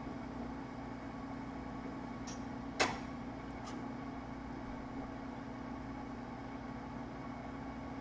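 Steady machine hum, with one sharp knock about three seconds in as the laptop motherboard is set down on the rubber work mat, and a couple of faint ticks around it.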